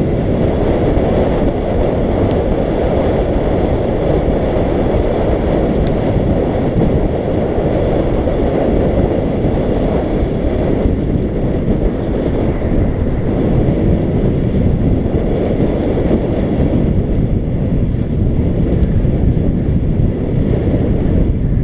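Steady rush of wind buffeting the microphone of a camera mounted on a moving road bike, mixed with the rumble of the tyres rolling on tarmac.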